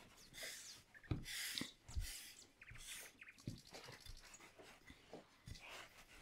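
Wooden rolling pin rolling out shortcrust pastry dough on a floured board: faint hissing rub strokes about once a second, with a few soft knocks.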